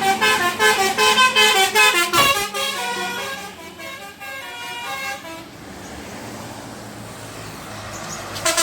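Bus 'telolet' musical horn playing a fast tune of short stepping notes, loud for about the first two seconds and fainter until about five seconds in. After that only lower steady vehicle noise is heard, until the horn starts again with short blasts near the end.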